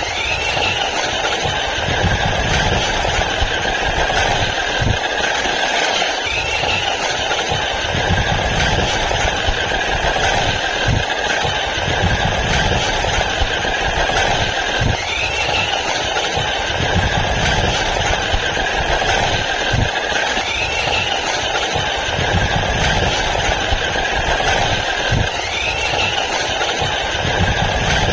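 Toy RC dinosaur monster truck driving on asphalt: its small electric drive motor and gears whir steadily along with tyre noise on the road. A short rising chirp repeats every five seconds or so.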